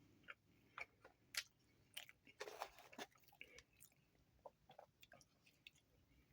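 Faint chewing of food by a person, with irregular small mouth clicks.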